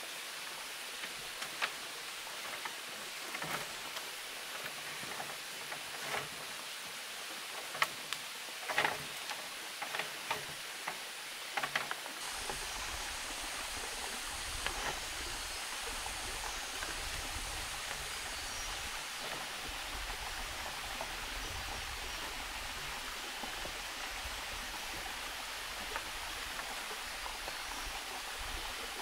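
Steady rushing of running water, with scattered light knocks and rustles as bamboo poles and vine lashings are handled during the first half. About twelve seconds in, the knocks stop and a low rumble joins the water noise.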